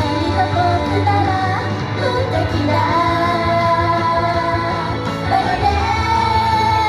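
Pop song with a woman singing over instrumental backing and a steady bass; she holds long notes about three seconds in and again near the end.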